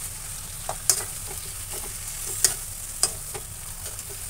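Metal spoon stirring potato pieces in a metal kadhai, scraping and knocking against the pan a few times, over a steady sizzle of frying.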